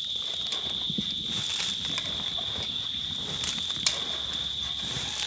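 Steady high-pitched drone of insects chirring outdoors, with a few faint taps and knocks scattered through it.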